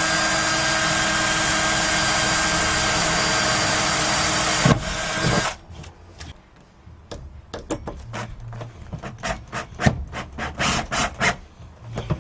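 A power drill runs steadily for about five seconds, drilling through the plywood floor lining into the van's steel floor, then stops. After that come irregular scraping, rubbing and knocking sounds on the wooden floor.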